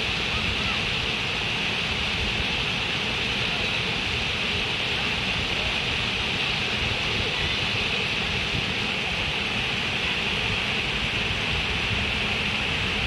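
Water rushing steadily, an even unbroken hiss with a low rumble beneath.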